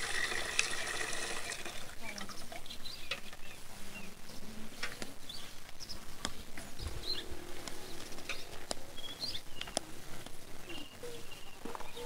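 Tap water pouring into a metal bucket, stopping within the first two seconds; afterwards scattered small clicks and short bird chirps.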